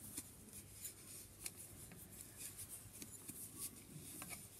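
Faint, scattered clicks and rubbing of wooden knitting needles and chunky wool yarn as stitches are knitted.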